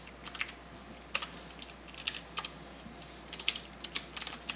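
Faint, irregular keystrokes on a computer keyboard, coming in small clusters with short pauses between them.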